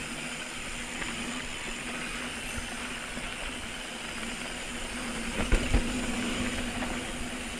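Mountain bike rolling down a rocky trail: steady tyre and wind noise over a low steady hum, with two hard knocks close together about five and a half seconds in as the bike hits rough ground.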